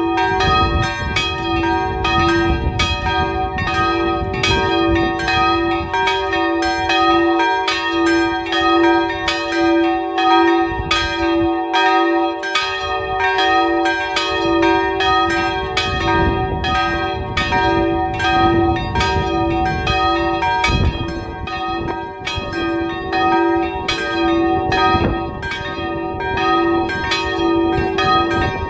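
Three small bronze church bells swinging in an open bell-gable, ringing together in a continuous peal. Their strikes overlap at about two a second.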